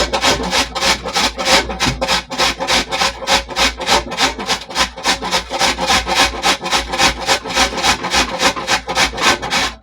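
White radish (mooli) being grated on a hand grater: fast, even rasping strokes, about four a second.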